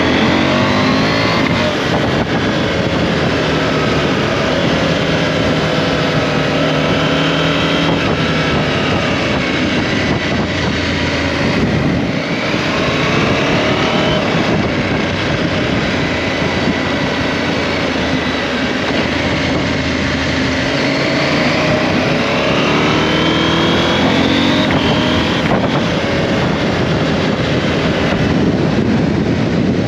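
KTM 790 Adventure's parallel-twin engine running under way, its revs climbing and falling again and again as the bike accelerates and shifts, over a steady rush of wind and road noise.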